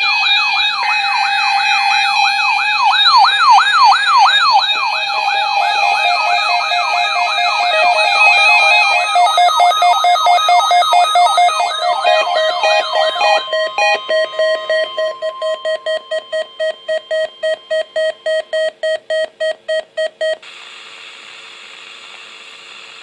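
Electronic alert sirens: several loud, overlapping tones rising and falling about twice a second. About 13 seconds in they give way to a rapidly pulsing alarm tone, which stops near 20 seconds and leaves a faint steady hum.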